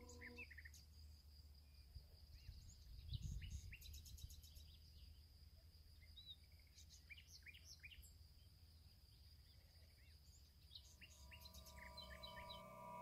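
Faint outdoor ambience: small birds chirping now and then over a low rumble, which swells briefly about three seconds in. Soft sustained music tones come in near the end.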